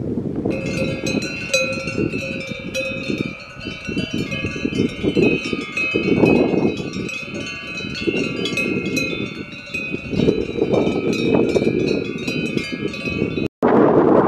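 Cowbells on a herd of grazing cattle ringing and clanking irregularly, many bells at once, over low wind rumble on the microphone. The bells start about half a second in and cut off abruptly near the end.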